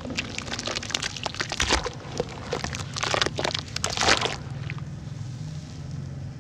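Chunks of red dirt crumbling apart in water: a dense crackling of small splits and pops that dies away about four seconds in.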